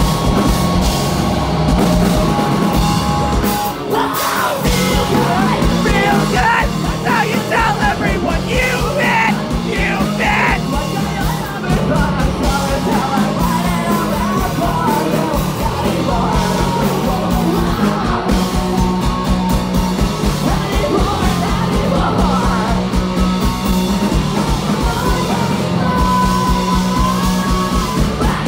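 Live rock band playing loud and fast: distorted electric guitars, bass and drums, with yelled vocals over them. The music dips briefly about four seconds in, then drives on.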